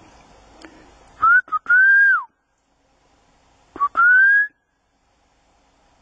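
Two whistled notes from a person. The first comes about a second in: it rises, holds, then drops away. The second comes near the middle: it rises and holds briefly.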